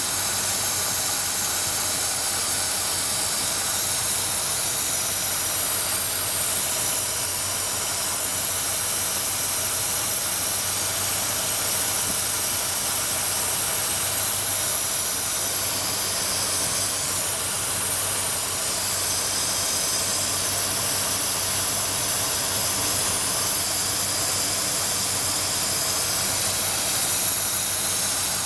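Engine fitted with a GEET fuel processor idling, a steady hissing run with a faint low hum that does not change.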